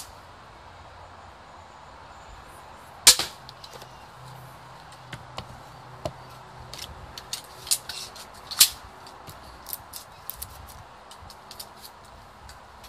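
Pistol crossbow shooting: a sharp snap about three seconds in and another about five and a half seconds later, with lighter clicks in between.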